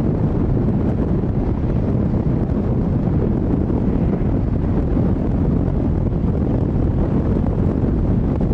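Steady wind buffeting the microphone: an even, low-heavy noise with no distinct tones.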